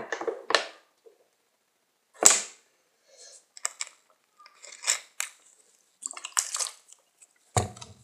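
Plastic water bottle being handled while some of its water is poured out: a run of short, sharp knocks and noisy bursts with gaps between them. The loudest is a single sharp knock about two seconds in.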